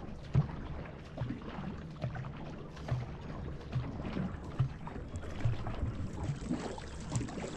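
Paddling in a two-person marathon racing canoe: water rushing along the hull, with a soft thump about every second from the paddle strokes.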